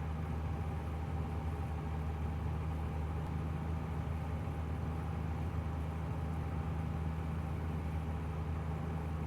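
Steady, even drone of a 1965 Cessna 172G's Continental O-300 six-cylinder engine and propeller, heard from inside the cabin on a slow final approach.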